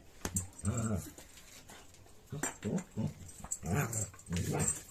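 A dog 'talking': a string of short, voice-like vocal calls, about six of them, with a lull of a second or so near the start.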